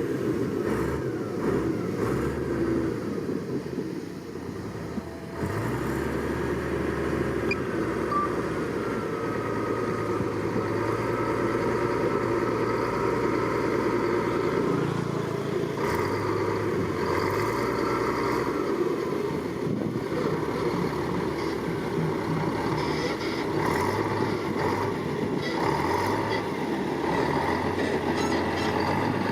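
Diesel engine of heavy earthmoving machinery running steadily under load. The engine note drops briefly about four seconds in and picks up again just after five seconds.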